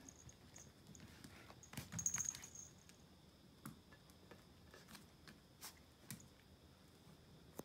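Faint scattered clicks and taps from a Pomeranian puppy playing with a plastic ball on a vinyl floor: claws ticking and the ball being nudged and mouthed, with a small flurry about two seconds in.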